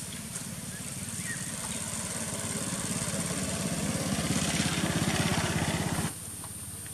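A small engine running and growing steadily louder, then cut off suddenly about six seconds in.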